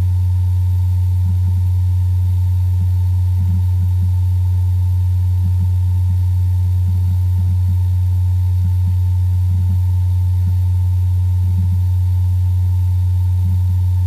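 Steady low electrical hum with a faint, thin higher tone, unchanging throughout; no other sound.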